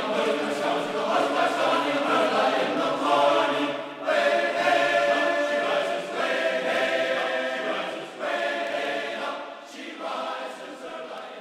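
Background choral music: a choir singing long, sustained phrases, fading out near the end.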